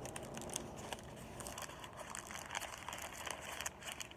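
Paper burrito wrapper crinkling and rustling in the hands as it is pulled back and rewrapped, a run of small sharp crackles.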